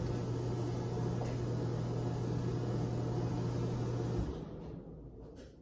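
A home heater's blower running with a steady low hum and rush of air. It switches off about four seconds in, the hum stopping at once and the air noise fading as it winds down.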